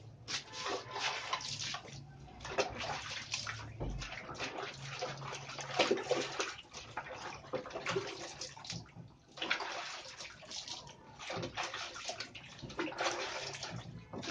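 Water sloshing and splashing in a plastic tub as a dog is washed by hand, coming in irregular bursts with short lulls between.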